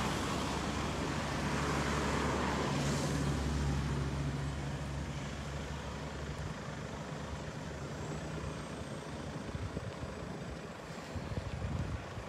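A motor vehicle's engine running close by at low speed, a steady low hum that fades away after about six or seven seconds, over road noise.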